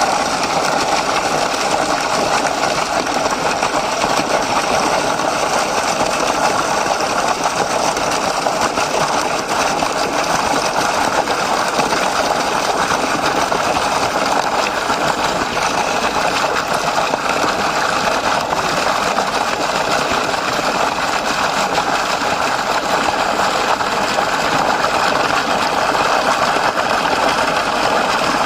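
Spring water flowing and splashing steadily, a continuous rushing hiss with no let-up.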